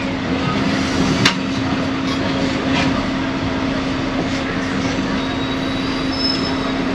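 Double-decker bus in motion, heard from on board: a steady engine hum over road noise, with one sharp click about a second in.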